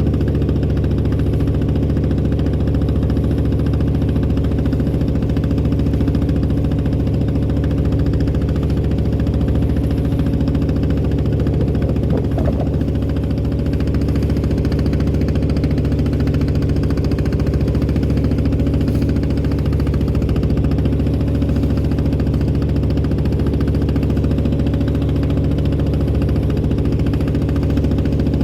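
Engine of a klotok, a small wooden motorboat, running steadily at an even speed while under way.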